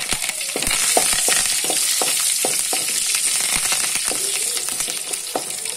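Curry leaves and garlic sizzling in hot oil in a metal kadai as a tempering: a steady hiss with frequent sharp crackles and pops as the moisture in the fresh leaves spits in the oil.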